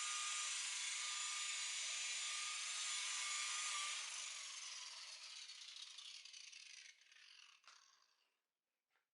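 Electric rotary buffer running at speed, then switched off and spinning down, its whine falling in pitch over a few seconds until it stops, with a faint click at the end.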